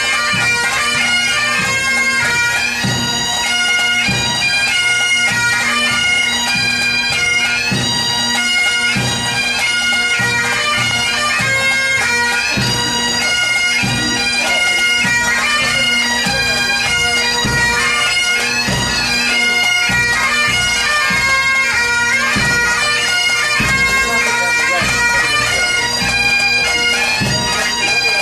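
A pipe band of Highland bagpipes playing a tune over their steady drones, with a drum beating time.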